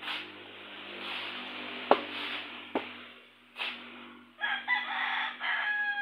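A rooster crowing, one long call starting about four and a half seconds in, with two sharp knocks a second apart about two seconds in, the first the loudest sound here.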